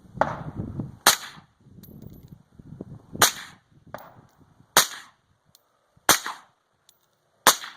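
Suppressed 5.56 AR-15 with an Adams Arms gas-piston upper and a Surefire 556 suppressor, firing five single shots at an uneven pace about one and a half seconds apart. Each shot is a sharp crack with a short tail. The rifle is set to its high gas setting and cycles each round without a malfunction.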